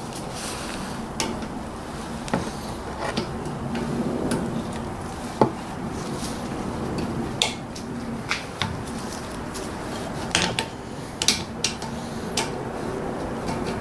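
Hand tools working on a car's front brake caliper bolt, a socket ratchet and pliers on the 13mm bolt and nut. Irregular sharp metallic clicks and clinks, several of them in quick clusters, over a steady low background.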